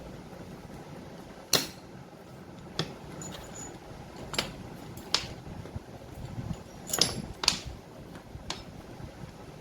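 Metal tools and compressor parts clinking and tapping during disassembly: about seven separate sharp clinks, a few with a short ringing tail, over a steady low hum.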